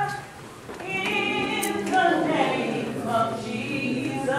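Church choir singing a gospel song in long held notes, with a brief dip about half a second in.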